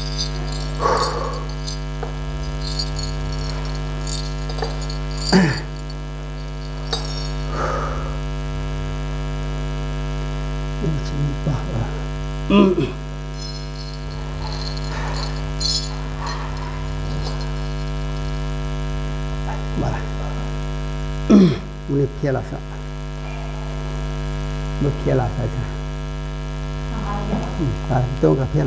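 Steady electrical mains hum with a few brief, scattered sounds over it.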